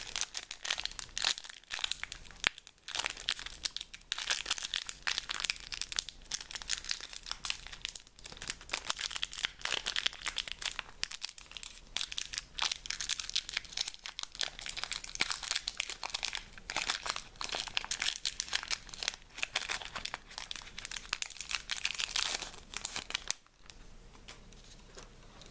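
Magic: The Gathering booster pack wrapper crinkling and tearing as it is opened by hand, a dense crackling rustle. The crackling stops about two seconds before the end.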